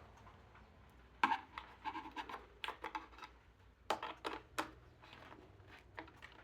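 Flat-pack cabinet parts being handled and fitted: a series of short knocks, clicks and scrapes in two clusters, starting about a second in.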